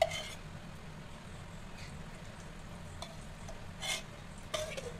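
Ghee melting on a hot iron tawa, sizzling faintly with a few short crackles. It opens with a sharp tick, and a low steady hum runs underneath.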